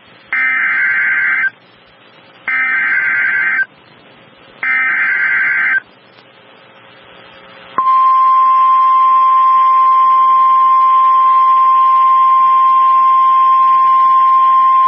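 Emergency Alert System SAME header for a severe thunderstorm warning: three bursts of harsh data screech, each about a second long with a second's gap between. About eight seconds in, the steady single-pitched 1050 Hz NOAA Weather Radio warning alarm tone starts and holds.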